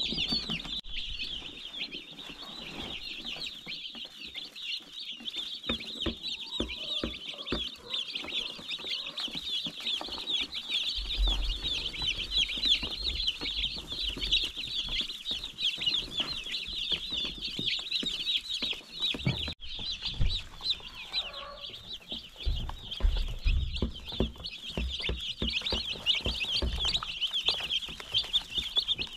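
A flock of young broiler chicks peeping continuously in a high, dense chorus, with scattered low bumps partway through.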